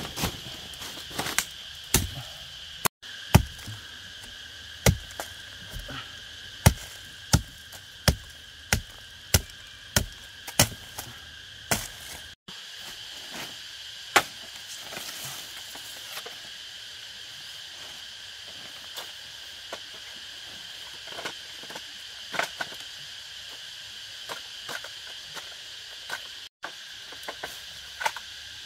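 A run of sharp strikes, about one and a half a second, over a steady high insect drone; after about twelve seconds the strikes thin out and grow softer.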